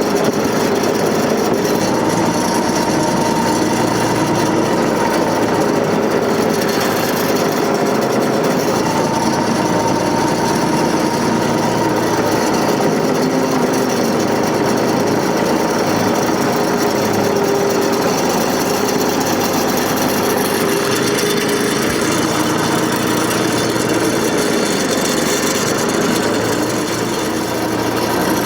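John Deere 485A backhoe running steadily, with a whining tone that shifts a little in pitch.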